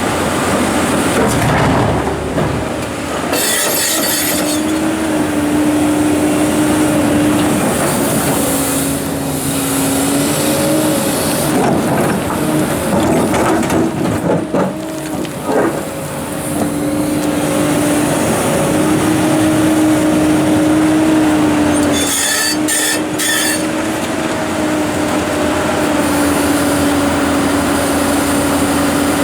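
Komatsu PC290-11 hydraulic excavator working: its diesel engine and hydraulics run under load with a steady whine that dips and rises slightly in pitch. Brief harsh grating noises come about three seconds in and again about twenty-two seconds in.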